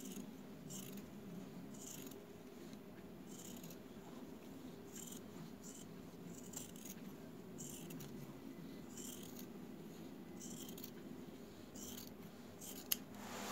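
Metal tailor's shears snipping through denim, cutting the original hem off a jeans leg: short crisp cuts about once a second, with a sharper click near the end. A faint steady low hum sits underneath.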